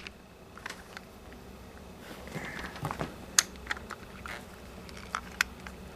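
Scattered light plastic clicks and taps from a Trackmaster rocking-bucket toy wagon being handled on a table, its bucket tipped over on its pivot.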